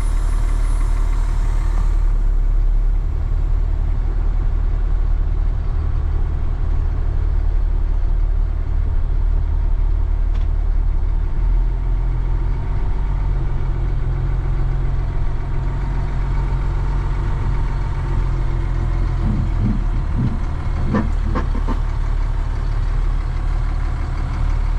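Heavy truck's engine running steadily at idle, a low hum. Near the end, a few brief squeaky noises that come from the driver's seat moving.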